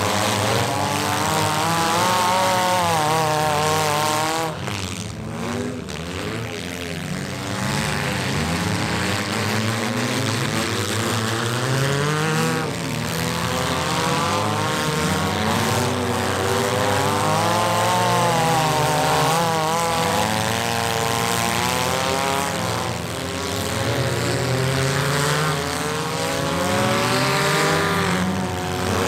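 Several demolition derby cars' engines revving hard together, their pitch rising and falling continually as the drivers race and spin around the arena.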